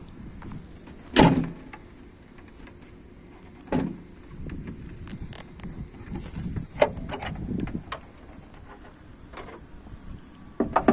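Opel Astra bonnet being opened and raised: a sharp metallic knock about a second in, then scattered clicks and knocks from the bonnet catch and prop as it goes up, with a last knock near the end.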